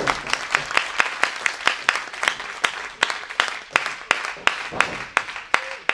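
Audience clapping in a steady rhythm, about five sharp claps a second, stopping right at the end.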